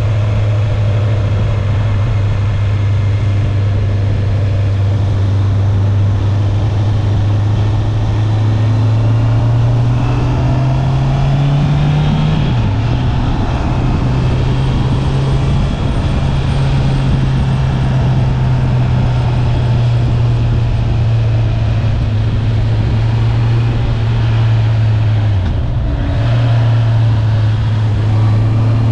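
Honda CB650R inline-four motorcycle engine on its stock exhaust, pulling under power with its pitch slowly rising. About twelve seconds in the pitch drops sharply at a gear change, then it runs steadily, with a brief dip near the end. Steady wind rush runs under it.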